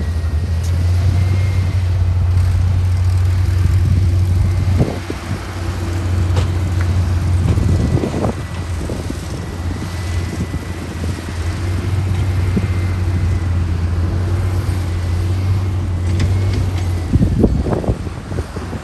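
LiuGong 160C bulldozer's diesel engine running steadily under load, with a thin high whine over the low engine note. It dips briefly about five seconds in, and scattered clanks and knocks come through, the loudest near the end.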